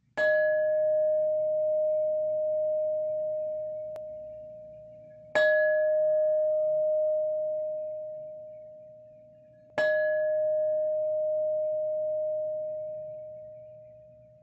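A bell struck three times, about four to five seconds apart, each strike ringing on one steady note and slowly dying away.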